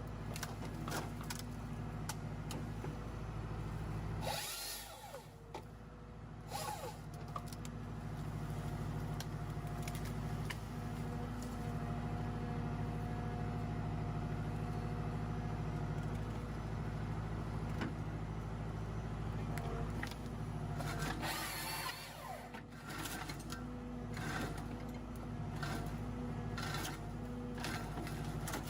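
Engine of a forestry machine running steadily under work, with repeated sharp cracks and knocks. The engine sound dips briefly twice, about five seconds in and again past twenty seconds.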